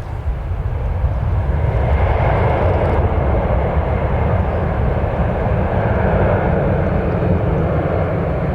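Airbus A318-112's CFM56 turbofan jet engines at takeoff power: a loud, steady rumble that swells about a second in, with a faint high whine on top.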